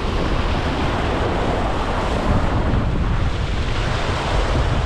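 Ocean swell surging and washing against the rocks in a steady rush of surf, with wind buffeting the microphone.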